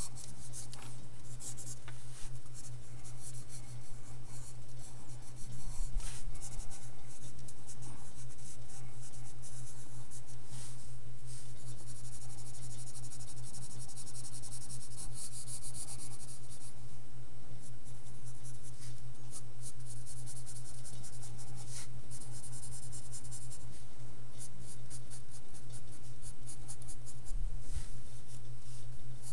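Graphite pencil scratching on sketchbook paper in quick, repeated sketching and shading strokes, over a steady low hum.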